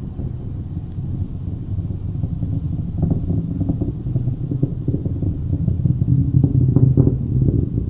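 Rocket launch rumble from a SpaceX Falcon 9 climbing away in the distance: a low, crackly rumble that slowly grows louder.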